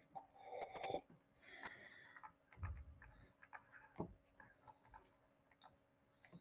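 Near silence: room tone with scattered faint clicks and a faint murmur.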